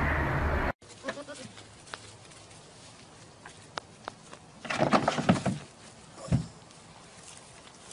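A steady noise cuts off abruptly under a second in. Then, after a few faint clicks, an animal gives a bleating call around the middle, followed by a shorter bleat about a second later.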